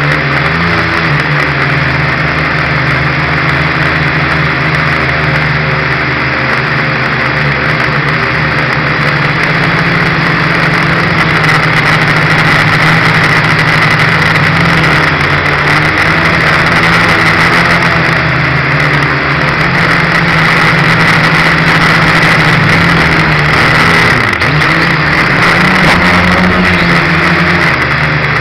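Small quadcopter's motors and propellers buzzing loudly and steadily, close to the onboard camera's microphone, the pitch shifting up and down as the flight goes on.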